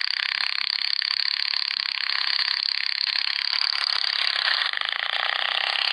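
Small engine running steadily at high speed, heard thin and tinny with no bass and a fast, even buzz of pulses.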